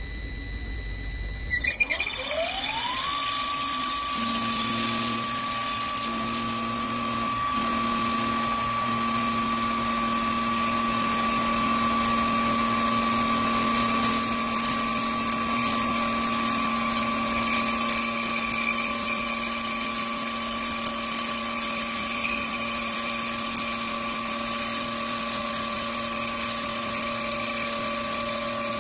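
CNC woodworking lathe's spindle motor starting with a few clicks, then winding up over about a second to a steady high-pitched whine that runs on at speed, with a lower hum joining a couple of seconds later.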